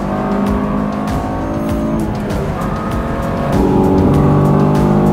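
Honda S2000's inline-four engine running under way at highway speed, heard from inside the cabin, its note climbing slowly with a short break about two seconds in. About three and a half seconds in the note becomes louder and fuller as the recording switches to a mic tucked low against the firewall.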